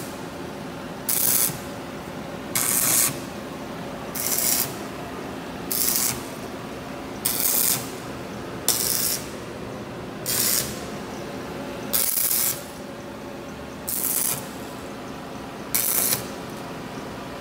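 Electric arc welder laying a series of short tack or stitch welds on a steel ATV frame: about eleven half-second bursts of arc crackle, roughly one every second and a half, over a steady low hum.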